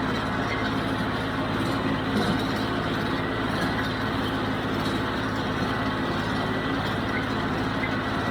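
John Deere 5055D tractor's diesel engine running steadily under load, powering a John Deere 348 square baler at work in the hay.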